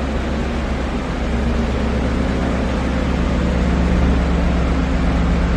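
A car's V8 engine idling steadily, a low-pitched even running sound. It is likely the 2017 Mustang GT's 5.0 V8 running through its exhaust.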